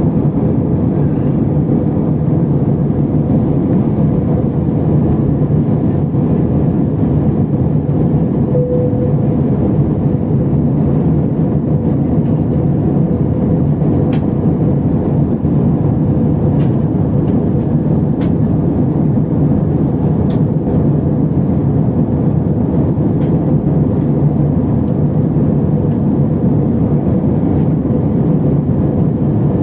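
Airbus A320 cabin noise in flight: a steady rush of engine and airflow noise with a low, even hum. A few faint clicks come midway through.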